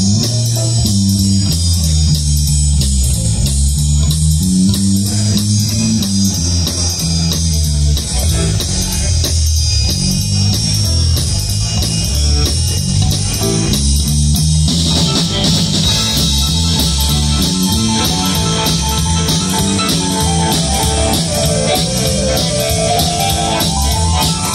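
Live electric band playing an instrumental passage: bass guitar line, drum kit keeping a steady beat, and guitars. The sound grows brighter about two-thirds of the way through, and a rising melodic line comes in near the end.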